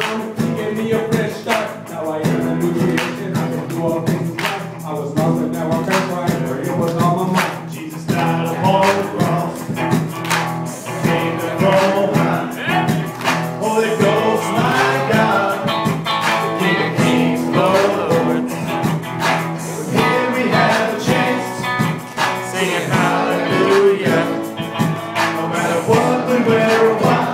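Live band music with electric guitar and a steady beat, with a man rapping into a microphone over it.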